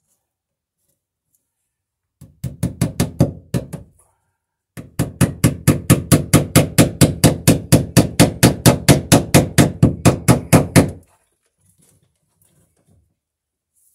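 Hammer driving a cable staple into a wooden beam to fasten electrical cable, with quick even blows. A short run of about eight blows, a break of under a second, then a steady run of about two dozen blows at some four a second.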